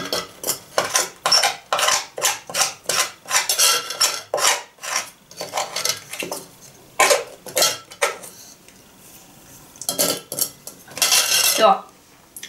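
Metal spoon scraping sweet adzuki bean paste out of a mesh strainer over a metal pot, in quick rasping strokes of about two a second, thinning out to a few separate strokes after about five seconds.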